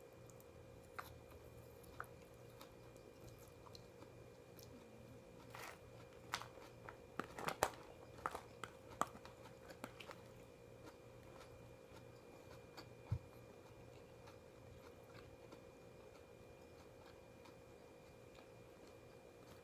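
A person chewing and biting food, with a cluster of quick mouth and bite clicks from about six to ten seconds in and scattered single clicks elsewhere. A single low knock comes about 13 seconds in, over a faint steady hum.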